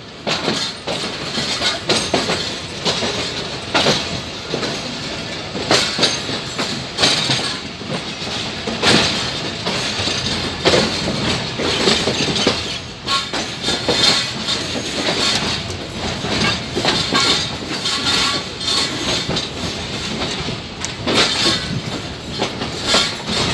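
A train rolling along the track, its wheels knocking over rail joints in an uneven clickety-clack throughout.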